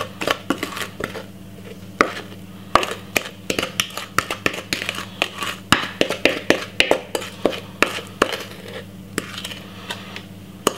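A spatula scraping sponge-cake batter out of a mixing bowl into a lined baking tin, with many quick taps and clicks of the utensil against the bowl, busiest in the middle. A steady low hum runs underneath.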